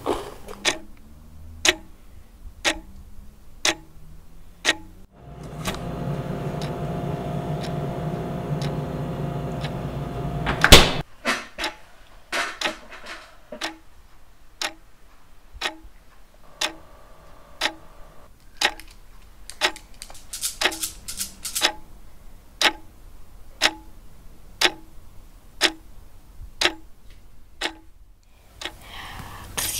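Clock ticking about once a second, each tick sharp and distinct. A few seconds in, the ticking gives way to a steady hum with several held tones for about six seconds. That ends in one loud hit, and the ticking then resumes.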